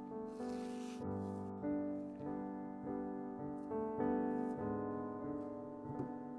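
Background piano music, soft notes played one after another. About half a second in comes a brief rustle of a banana being peeled.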